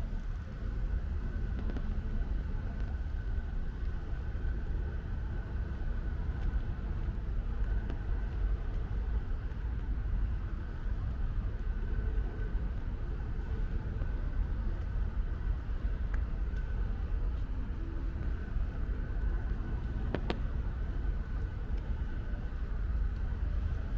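Outdoor ambience in light rain: a steady low rumble of road traffic under a faint even hiss, with a thin steady high tone throughout and one sharp click about twenty seconds in.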